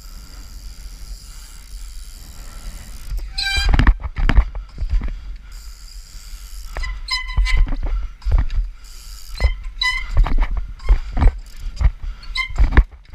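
Street trials bicycle hopping on stone steps: after a few seconds of quiet rolling, a run of sharp thuds and clacks as the tyres land on the stone, about a dozen spaced unevenly, several with a brief high metallic ring or squeal.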